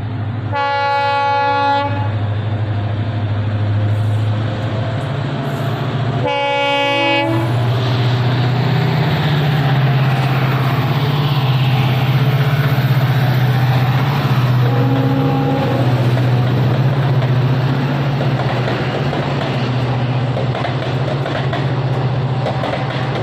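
Diesel locomotive sounding its horn twice, a blast of over a second then a shorter one about five seconds later, as it runs through at speed hauling passenger coaches. Its engine drone and the rumble and clatter of the coach wheels on the rails run throughout, with a fainter, lower horn note briefly about halfway through.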